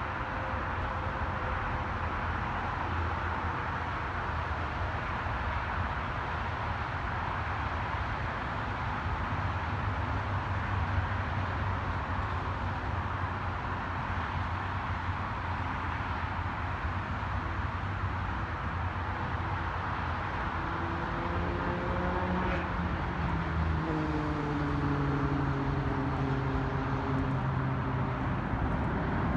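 Boeing 747 Dreamlifter's jet engines heard on approach: a steady rumble with a wide hiss. From about two-thirds of the way in, several falling tones come in, and the sound grows louder near the end as the jet draws nearer.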